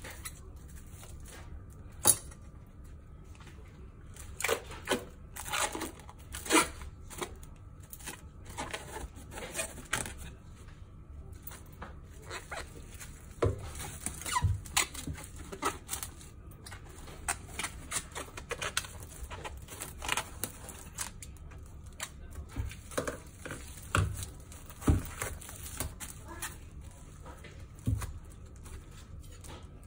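Plastic cling film crinkling and rustling in irregular bursts as it is pulled from the roll and pressed tightly around a whole raw fish, with a few dull knocks mixed in.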